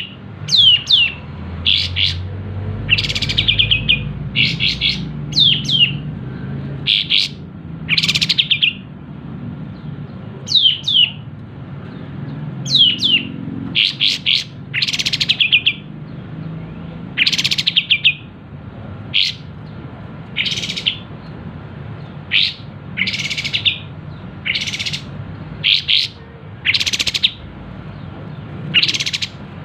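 Kapas tembak bird singing in short, loud, high bursts every second or two. Some bursts are quick falling whistled notes and others rapid chattering trills.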